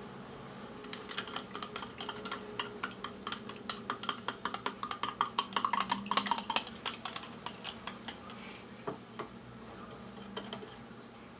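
Utensil beating a lemon, sugar and milk mixture by hand, clicking rapidly against the side of its container. The taps grow louder toward the middle, then slow to a few scattered knocks.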